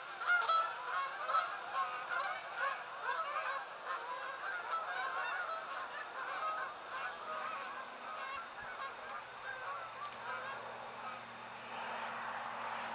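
A flock of geese honking overhead, many overlapping calls, loudest at the start and growing fainter.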